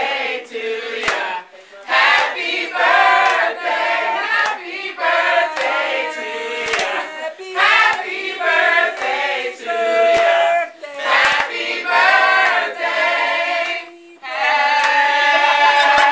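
A small group singing a birthday serenade together, with hand claps.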